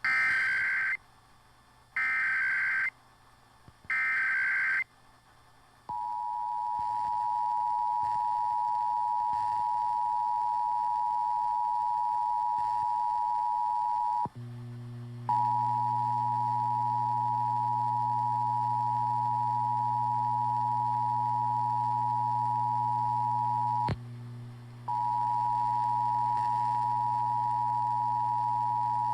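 Emergency Alert System tones received over FM radio. First come three one-second bursts of the SAME digital header, a harsh data screech. Then the two-tone EAS attention signal holds steady, cutting out briefly twice, with a low hum joining about halfway through.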